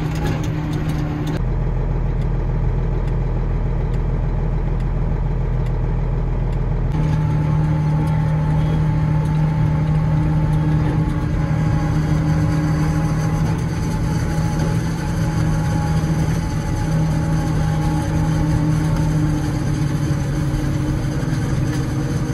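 Case IH Magnum 7230 tractor engine running steadily, heard from inside the cab. The engine note changes abruptly twice, once early and again about a third of the way through.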